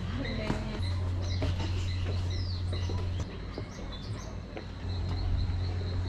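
Birds chirping: a short chirp repeats about three times a second, with a few quick gliding calls over it, above a steady low hum.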